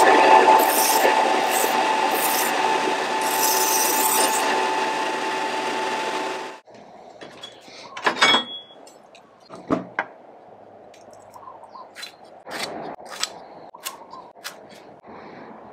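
Small bench belt sander running with a steady whine, a wooden slingshot handle pressed against the belt in several short sanding passes. It cuts off about six and a half seconds in, followed by a few short knocks and scrapes of hand tools being handled.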